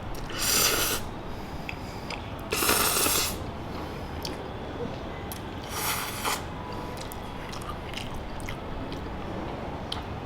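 A person slurping noodles in three short, loud slurps a few seconds apart, with soft chewing and wet mouth clicks between them.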